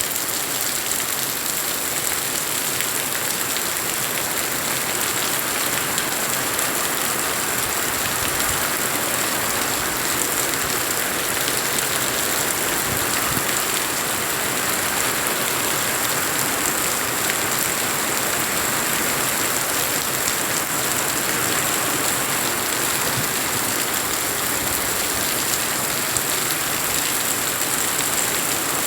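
Steady rain falling, a dense even hiss of drops that holds unchanged throughout.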